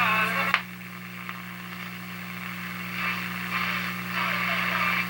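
1937 Sears Silvertone tube radio's speaker giving static hiss over a steady hum. The hiss swells and fades, with a sharp click about half a second in. The radio has very poor reception.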